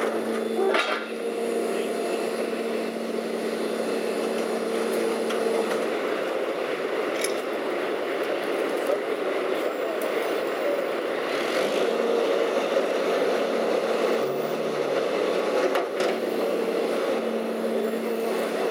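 Rear-loader garbage truck's engine running steadily with a constant hum, with a few brief knocks of debris now and then.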